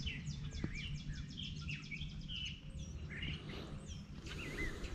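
Several birds calling and singing at once along a wooded riverbank at dawn: a fast run of repeated high notes in the first two seconds, with assorted whistled calls throughout. A steady low rumble sits underneath.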